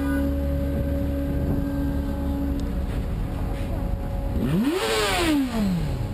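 A vehicle engine running steadily, then about four and a half seconds in revving up sharply and dropping back down, with a rush of hiss at the peak of the rev.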